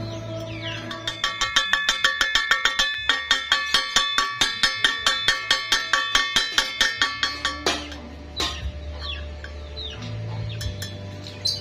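Comic music sting with a quick, even percussive beat of pitched notes, about four a second, lasting some six seconds. Near the end a low electric hum from the welding machine returns.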